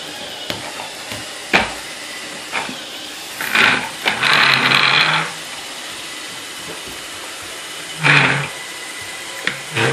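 Wooden toddler balance bike rolling across a hardwood floor in short pushes, its wheels rumbling and rattling, with one sharp knock about a second and a half in.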